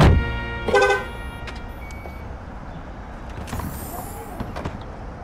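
A car door slammed shut on a large SUV, followed about a second later by a short pitched chirp like the car's remote-lock signal, then quiet steady street noise.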